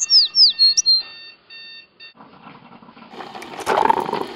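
Birds chirping in short falling whistles, over a digital alarm clock beeping in steady repeated tones that stop about two seconds in. Then a rushing hiss builds, with a few sharp clicks near the end.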